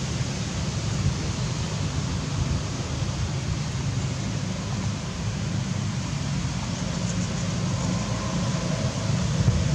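Steady wind rumble buffeting the camera microphone, a low noisy roar with no distinct events.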